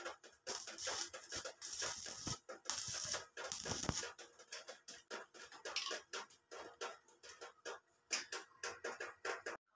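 Stick (shielded metal arc) welding on a steel pipe: the arc crackles and sputters in a dense, irregular stream of sharp pops, heaviest in the first few seconds and thinning later, then cuts off just before the end as the arc is broken.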